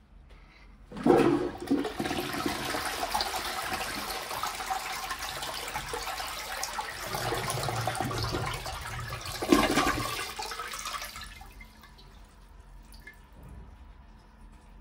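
Syphonic flush of a 1976 Armitage Shanks 'Unimyna' close-coupled toilet, fitted with a Turbo 88 replacement syphon, clearing a bowl full of toilet paper: a sudden rush of water about a second in, a steady churning flow, a second loud surge about nine seconds in, then the flow dies away.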